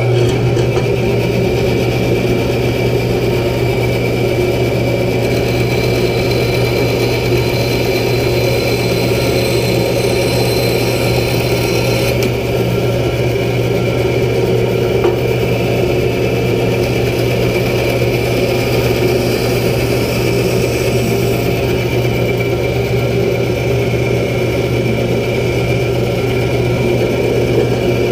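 Bandsaw running steadily, its motor and blade giving a loud, even hum.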